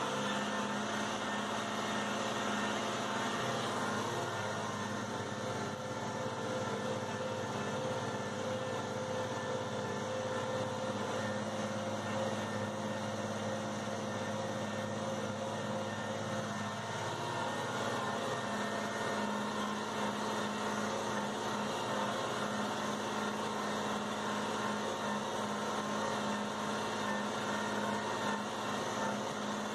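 Tractor engine running steadily under load while pulling a field cultivator, heard from inside the cab, with a slight dip in pitch partway through.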